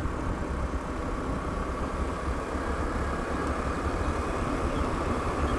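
Steady rushing wind and road noise from a vehicle moving along a paved road, with a faint steady hum.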